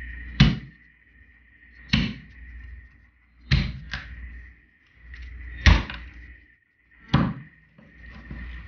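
Meat cleaver chopping down through a croaker's head on a wooden cutting board, splitting it in half: five heavy chops about a second and a half apart, with a lighter knock after the third.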